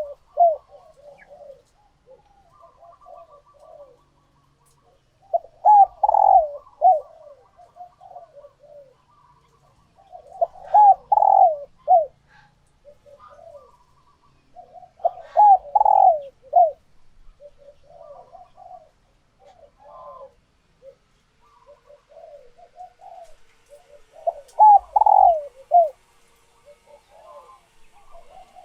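Female spotted doves cooing: four loud bursts of quick, low coos about five seconds apart, with a longer gap before the last, and softer coos in between. These are the calls of hens ready to lay, the sound used to stir a male into calling back.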